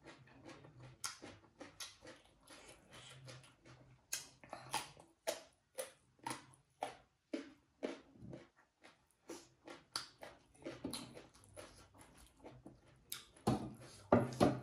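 Close-miked mouth sounds of eating rice and pork: chewing and lip-smacking as irregular wet clicks, about two or three a second. A louder knock comes near the end.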